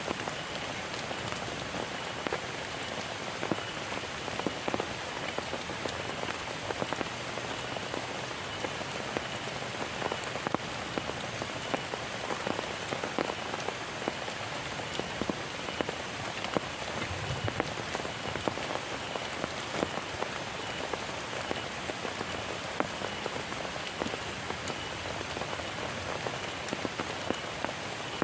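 Heavy rain falling steadily: a constant hiss with many sharp drop taps landing on a surface.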